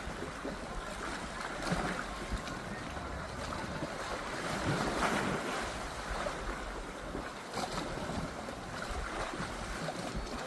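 Wind buffeting the microphone over rushing, splashing water from a boat under way.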